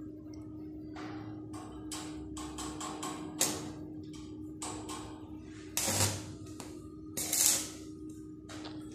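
Stick (arc) welding on a steel door frame: a string of short crackling arc bursts as the electrode is struck and held for tack welds, the longest and loudest about six and seven and a half seconds in, over a steady hum.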